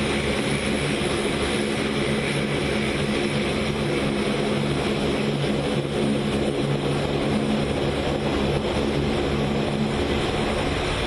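Indian Air Force C-130J Super Hercules taxiing, its four turboprop engines and propellers running in a loud, steady drone with a low propeller hum.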